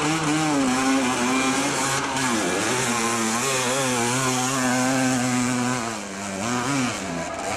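Off-road motorcycle engine revving hard under load as the bike climbs a very steep dirt slope. Its pitch rises and falls with the throttle, backing off briefly about two and a half seconds in and again about six seconds in.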